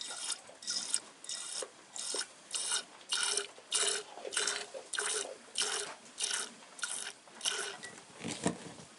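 A dairy goat being milked by hand: streams of milk squirting into a pail in a steady rhythm, about two squirts a second.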